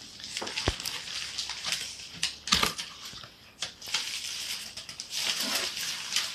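Cardboard packaging being handled and opened by hand: flaps and card inserts scraping and rustling, with a few sharp clicks and knocks of cardboard.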